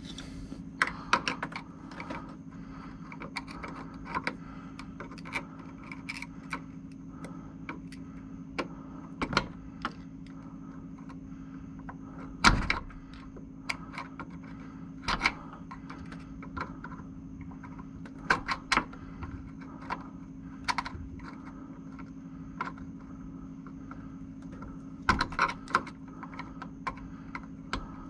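Irregular metal clicks and scrapes of two screwdrivers prying at a small C-clip on a VW Super Beetle door pin, with one sharper click about halfway through, over a steady low hum.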